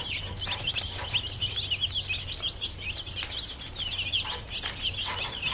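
A brood of baby broiler chicks peeping without pause, many short high chirps overlapping, over a low steady hum.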